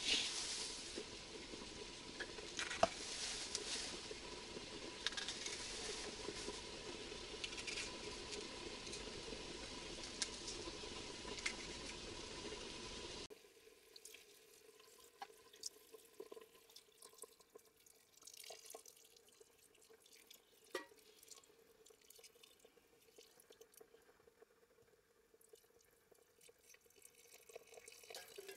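Food sizzling in an Afghan cauldron over a gas camp burner. About halfway through this gives way to a much quieter thin trickle of water poured from a kettle into the cauldron, with faint drips.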